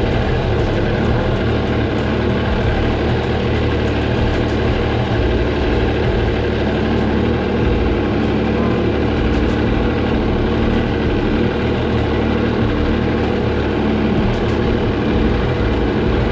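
Yamaha TR-1 three-cylinder four-stroke watercraft engine idling steadily, with the flush water shut off and the engine left running to blow the remaining water out.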